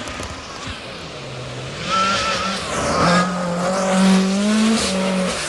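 Lancia Delta S4 Group B rally car's twin-charged four-cylinder engine at high revs as the car comes on hard. Its pitch climbs and drops a few times with throttle and gear changes, and it gets loud about two seconds in.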